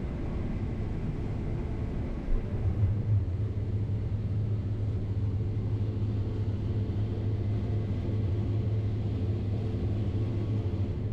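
Steady low engine drone of heavy farm machinery, heard from inside the cab, running at an even pace.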